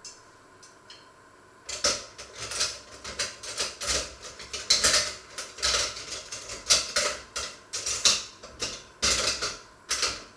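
Dishes, pots and cutlery clattering and clinking in a stainless-steel kitchen sink as they are handled, a rapid irregular run of knocks and clinks starting about two seconds in.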